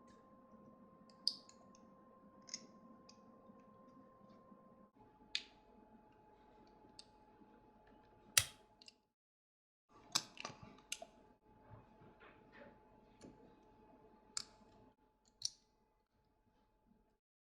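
Scattered sharp clicks and taps of small hard objects being handled, over a faint steady hum; the loudest single click comes about eight and a half seconds in, and the hum drops out to silence for about a second just after it.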